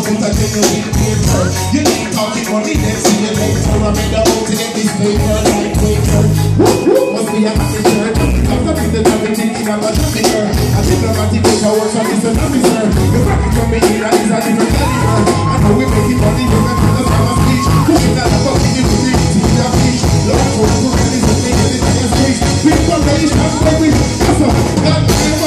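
Live reggae band playing loud through the PA, with a strong pulsing bass line and a singer's voice over the band.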